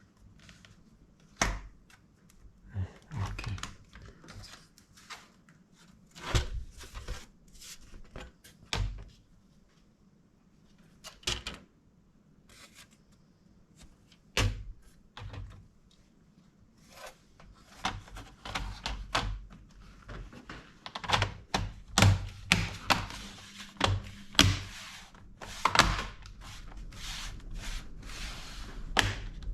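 Irregular clicks, taps and knocks from hands working on a laptop, few at first and coming thick and fast in the second half.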